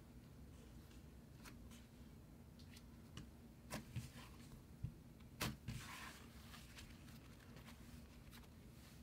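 Faint sticky clicks and crackles of fluffy cloud slime being stretched and pressed by hand, with a cluster of sharper clicks about four to six seconds in, over a low steady hum.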